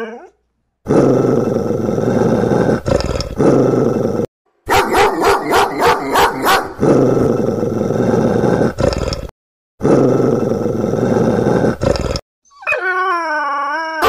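A dog growling in long, rough stretches with short silent breaks, one stretch breaking into quick pulses about four a second. Near the end a wavering, pitched howl begins.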